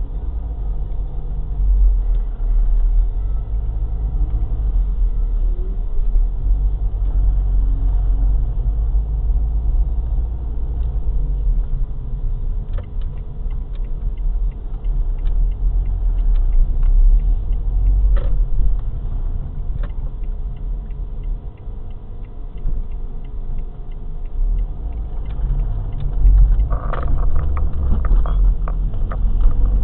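Car driving slowly, heard from inside the cabin through a dashcam microphone: a low steady rumble of engine and tyres that swells and eases, with scattered light clicks and rattles in the second half.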